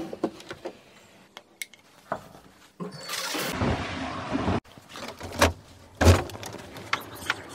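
Metal door handle clicking, then rustling of a bag and footsteps going down carpeted stairs, then a uPVC front door's lever handle turned with a clunk about six seconds in.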